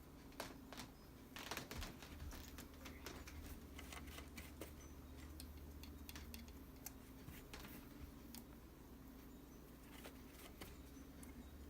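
Faint, irregular small clicks and scratching of hand work on a sewing machine: brushing black grime off the motor shaft's bearing, over a steady low hum.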